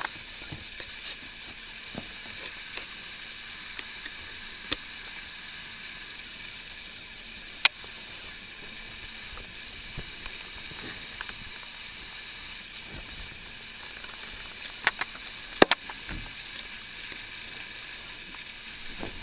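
Kittens scrabbling and rustling under a cotton blanket over a steady hiss, with a few sharp clicks. The loudest click comes a little before halfway, and two more come close together about three-quarters of the way through.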